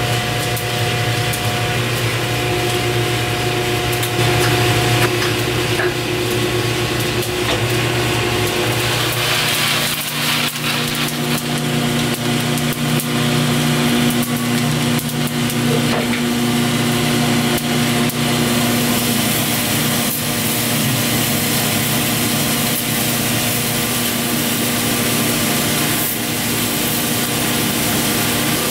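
Drum coffee roaster running, with a steady motor and fan hum. Over it is the rough, continuous rasp of freshly roasted beans being swept around the cooling tray by its stirring arm.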